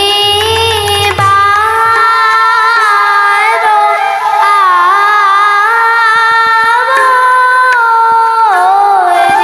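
A young female voice singing a borgeet, an Assamese devotional song, in long ornamented notes, with bamboo flute and harmonium accompaniment. A double-headed drum plays in the first second, then drops out.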